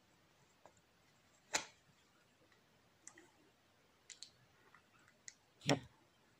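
A few faint, scattered clicks and taps. A sharp one comes about a second and a half in, a few softer ones follow, and the loudest, fuller knock comes near the end.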